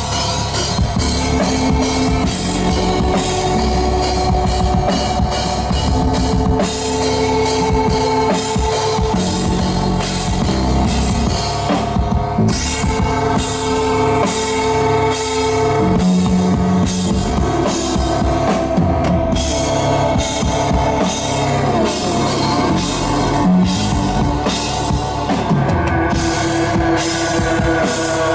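Live drum kit and synthesizer playing together: a busy rock-style beat with bass drum and cymbals under held synth chords that shift every couple of seconds.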